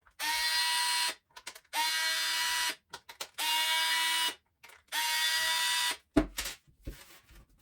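Cordless electric screwdriver running four times, about a second each with a quick rise in pitch at the start, backing out four screws of a charger's housing. A few light clicks follow near the end.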